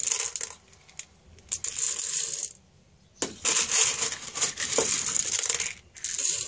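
Raw green coffee beans rattling as they are scooped and poured, in four or five rushes about a second long with short pauses between.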